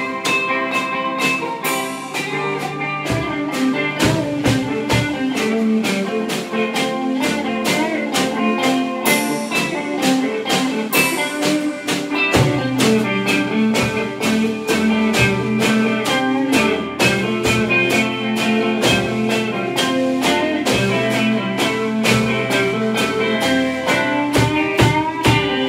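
Instrumental rock played live by a trio: two electric guitars over a Gretsch drum kit, with a steady beat and a few cymbal crashes.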